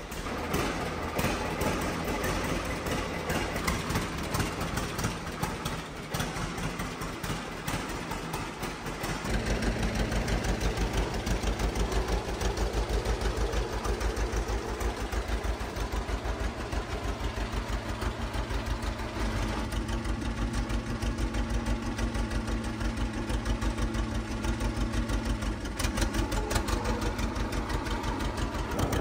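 John Deere Model D's two-cylinder engine running: uneven for the first nine seconds or so, then settling into a steady, louder, evenly pulsing beat.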